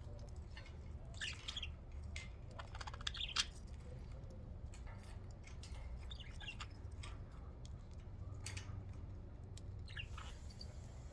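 Budgerigars chirping in short scattered bursts, several times, over a steady low hum.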